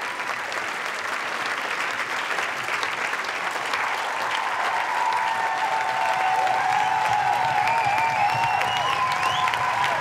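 Steady applause, growing slightly louder in the second half, with thin wavering high tones coming in over it about halfway through.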